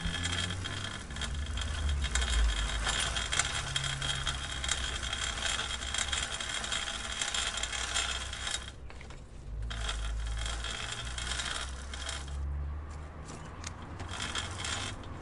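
Bicycle chain and drivetrain clicking and rattling in a dense, continuous stream of small ticks, with a low rumble underneath and a short lull about nine seconds in.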